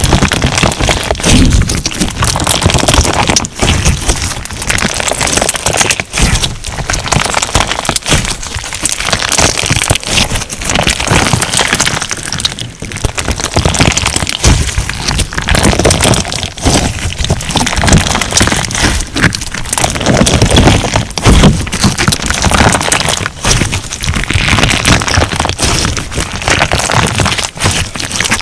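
Crunch slime being squeezed and pressed by hand: dense, loud crackling and popping, in swells every second or two.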